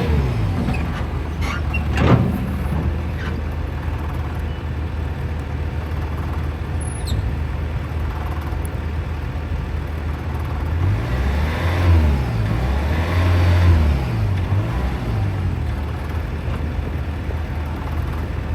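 Bobcat T590 skid steer's diesel engine running steadily while the machine is operated, with a single clank about two seconds in. Later its pitch dips and recovers several times in quick succession as the engine takes hydraulic or travel load and picks back up.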